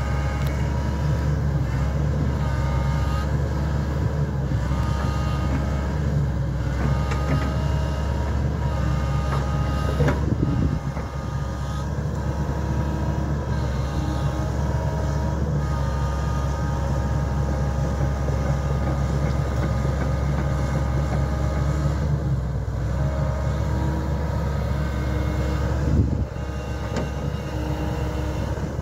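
Hitachi tracked excavator's diesel engine running steadily while the machine digs into peat, with whining tones that come and go and shift in pitch as the boom and bucket move. Two sharp knocks stand out, about ten seconds in and a few seconds before the end.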